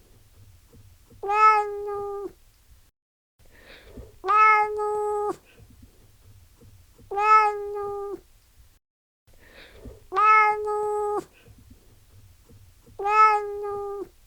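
Domestic cat meowing: one drawn-out, steady-pitched meow about every three seconds, five in all, each sounding the same.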